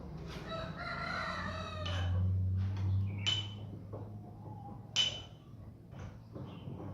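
A rooster crowing once, a call of about a second and a half. Two sharp ringing clinks follow later, over a steady low hum.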